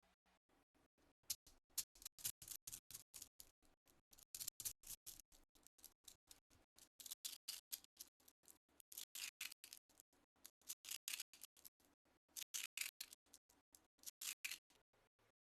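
Slime being squeezed and pressed by hand, giving faint clusters of crackly, clicking bursts every second or two.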